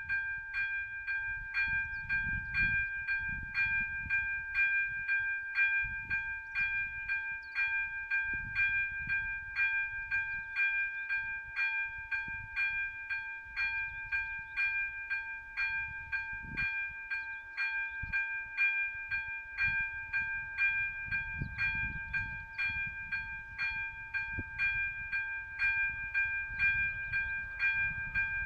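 Level-crossing warning bell ringing steadily at about two strikes a second, the signal that a train is approaching, over gusty low wind rumble on the microphone.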